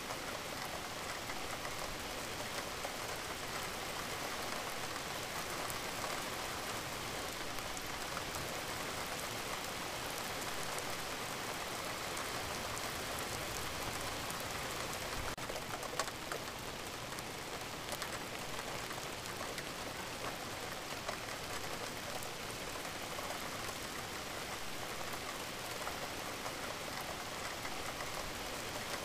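Recorded rain-sounds track: steady rain falling, an even patter with no let-up. One brief tap stands out just over halfway through.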